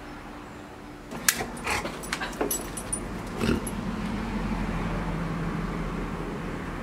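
A dog shakes and chews a plush toy, with a quick run of sharp clicks and clinks from about a second in. A steady low hum follows.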